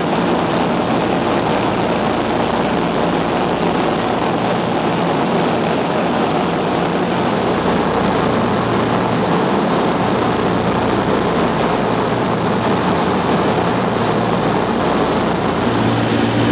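Douglas DC-3's radial piston engines and propellers running steadily in flight, heard from inside the aircraft. A low hum under the engine noise weakens after the first couple of seconds and comes back near the end.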